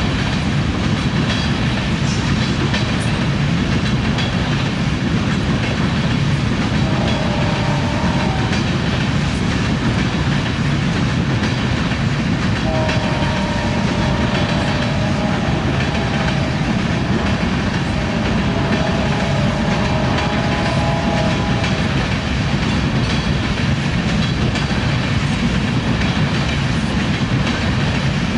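Tank cars of a freight train rolling past steadily, the wheels clicking over the rail joints. A faint horn chord sounds briefly about seven seconds in, and again for several seconds from about twelve seconds in.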